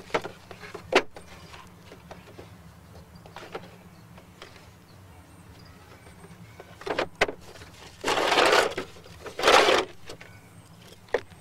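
A plastic toy car being handled: a few sharp plastic clicks and knocks as its parts are worked back on, then two short scraping rushes near the end.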